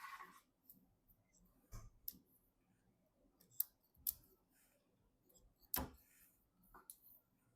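Scattered sharp clicks and taps from computer parts being handled during a PC build: a short swish at the start, then about half a dozen separate clicks, the loudest two close together in the middle and another a couple of seconds later.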